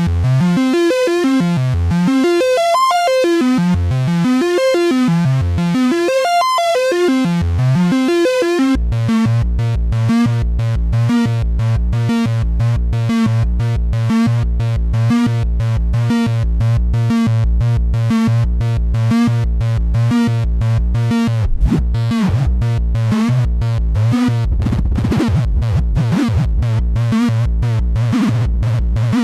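RYK Modular Night Rider synthesizer module playing a repeating pitched note pattern that changes, about nine seconds in, to a fast, even pulsing sequence over a steady low note. Near the end a sweeping tone swells in and out.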